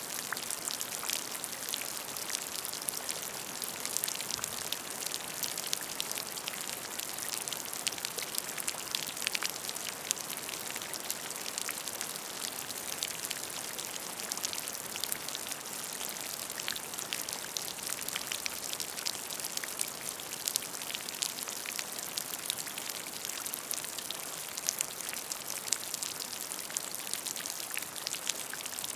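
Steady rain with many distinct drops pattering on a surface, a constant hiss dotted with sharp little ticks.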